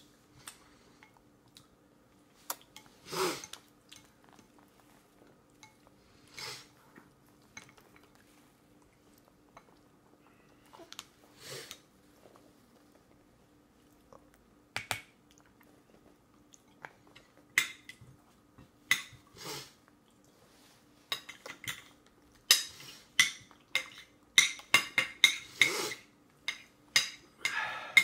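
A toddler's plastic spoon clinking and scraping against a stainless steel bowl, scattered at first, then a quick run of taps near the end, with soft chewing in between.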